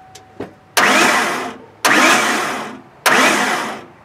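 Ford 4.9-litre inline-six cranked over by its starter in three short bursts of about a second each, without catching. The newly fitted timing gears turn with the cover off, as a check that the engine spins freely after the timing gear replacement.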